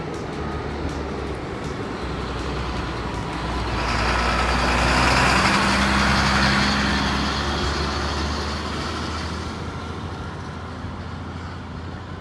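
A box truck driving past close by: its engine and tyre noise grows louder over a couple of seconds, is loudest about halfway through, then fades away, over a steady rumble of distant traffic.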